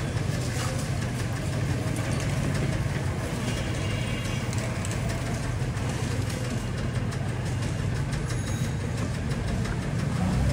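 A vehicle engine idling steadily nearby, a continuous low hum under street noise.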